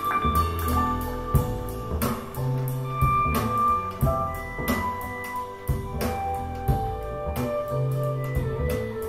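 Live jazz played back through a pair of Fluance Ai61 powered bookshelf speakers, with pitched notes over a bass line that moves note by note.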